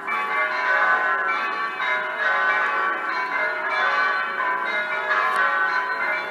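Electronic church-bell system sounding over loudspeakers a simulated full swinging peal (distesa) of the six largest bells of an eight-bell set in B, triggered by hand. Many bell strikes overlap into a continuous, dense jangle of ringing tones.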